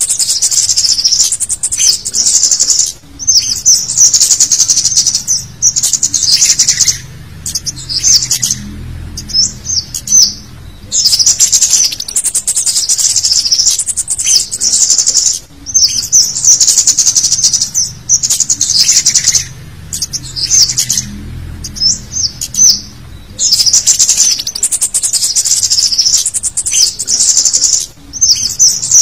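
Scarlet-headed flowerpecker (cit kemade) calling in a busy lure call: rapid, high-pitched chittering 'cit' notes packed into bursts of one to three seconds, broken by short pauses.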